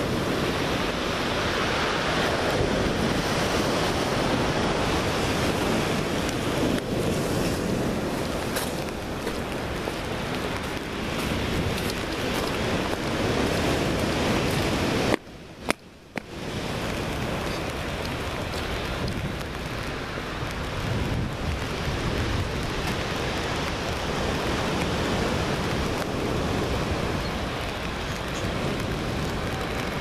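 Steady rush of wind blowing across the microphone, mixed with the wash of sea surf. The noise breaks off for about a second halfway through.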